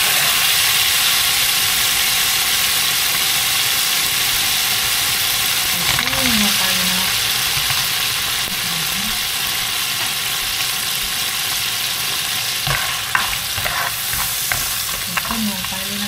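Garlic and then shrimp sizzling in hot oil in a wok, stirred with a spatula, with a steady frying hiss throughout. Near the end the spatula gives a few light clicks against the pan.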